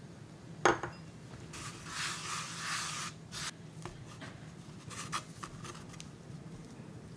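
A sharp knock just under a second in, then a wooden spatula scraping sticky cookie dough across a wooden board dusted with purple potato powder for about a second and a half, followed by a few short scrapes and taps.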